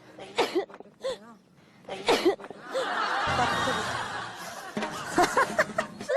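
People laughing and snickering. It begins as a few short, separate bursts and becomes a continuous mix of several people's laughter a little under halfway through.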